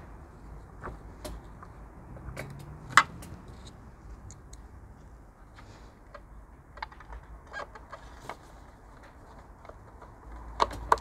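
Scattered light clicks and taps of a screwdriver and hard plastic while screws are driven into a car door mirror's plastic housing to refit the mirror-adjuster unit. One sharper click comes about three seconds in and two more near the end.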